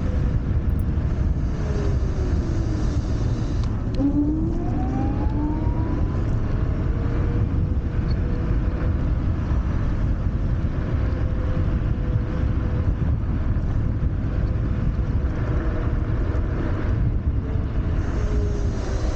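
Wolf Warrior 11+ electric scooter being ridden, with steady wind buffeting on the microphone and road rumble. The motor's thin whine rises sharply as it accelerates about four seconds in, holds through the middle, and drops near the end as it slows.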